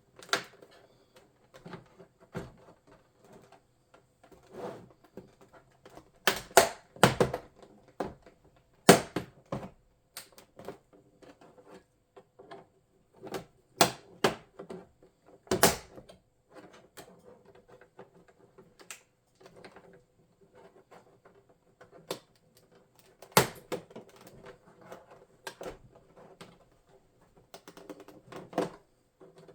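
Plastic back cover of a Lenovo ThinkCentre M73z all-in-one computer being pried off: irregular sharp clicks and snaps as the retaining clips pop loose, between softer plastic taps and scrapes.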